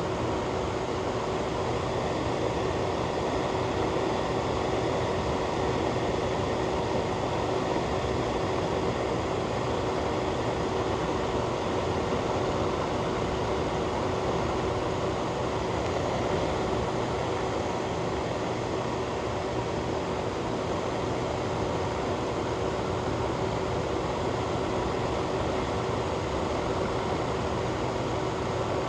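Fan or ventilation blower running steadily: an even rushing noise with a constant low hum underneath.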